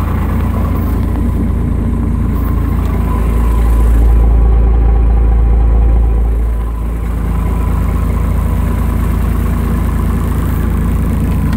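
A 1987 Ford F800's 7.8-litre inline-six diesel idling steadily, with a deep low rumble. It grows louder and deeper for a few seconds midway, then settles back to the same even idle.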